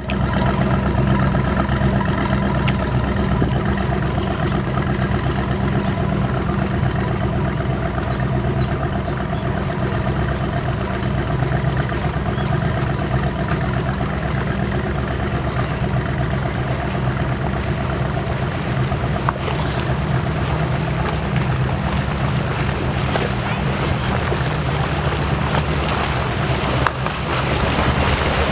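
Boat engines running with a steady low drone, the engine tones clearest in the first several seconds and fading as the nearest motorboat moves off. A rushing wind-and-water noise rises near the end.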